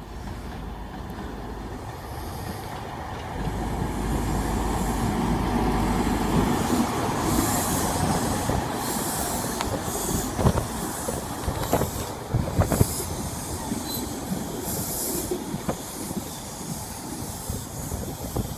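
Class 43 HST power car's diesel engine running as it draws near and passes, the rumble and hiss swelling to a peak. Its Mark 3 coaches then roll by, with a series of sharp clacks as the wheels cross rail joints and points.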